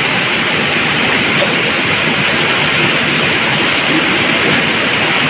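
Steady, loud rushing hiss with no distinct events.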